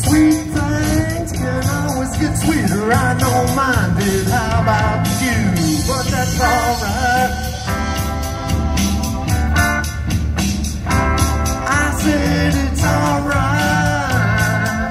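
Live blues-rock music from a street performer: electric guitar with a singing voice over a steady bass line, amplified through a PA speaker.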